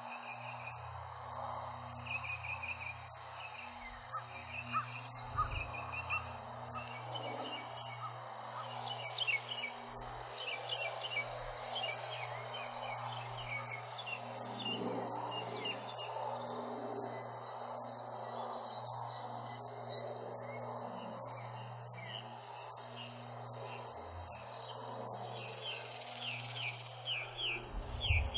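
Field insects chirping in an even, fast, high-pitched pulse, with birds calling and trilling now and then over it.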